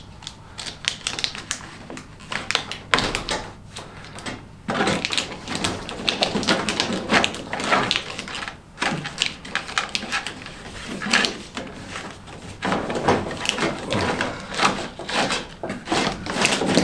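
Dense, irregular clicking and rattling of hands working plastic connectors and wiring in a Jeep Wrangler JK engine bay as a lighting wiring harness is unplugged and pulled out.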